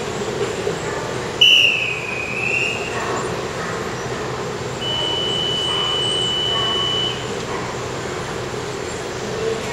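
Departure whistle on the train platform: a short, loud, shrill blast about a second and a half in, then a long steady whistle tone lasting about two seconds near the middle, over a steady low hum.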